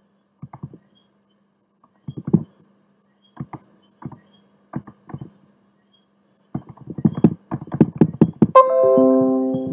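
Computer mouse scroll wheel clicking in short runs of ticks while a long list is scrolled, the runs coming faster and denser after about six and a half seconds. Near the end comes a Windows notification chime: a few quick descending notes that ring and fade.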